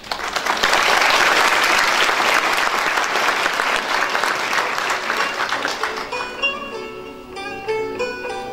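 Audience applauding, fading out after about six seconds, as a plucked-string instrumental tune begins and carries on.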